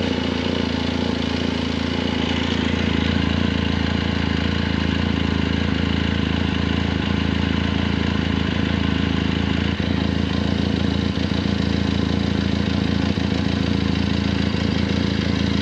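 Benelli 502C's 500 cc parallel-twin engine idling steadily through its stock exhaust, reading about 76 to 79 dB on a watch held at the silencer.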